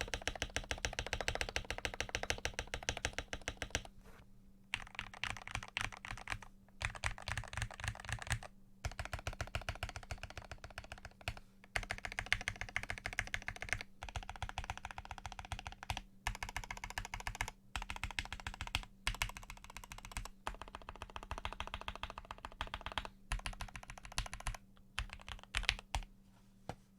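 Fast typing on a 60% custom mechanical keyboard with lubed Gateron Pro Yellow linear switches and PBT keycaps, a quick stream of keystrokes in bursts of a few seconds with short pauses between them.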